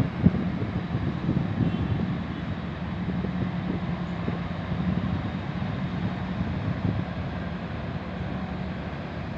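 Steady low drone of a large car ferry's diesel engines as it manoeuvres toward the dock, with wind buffeting the microphone.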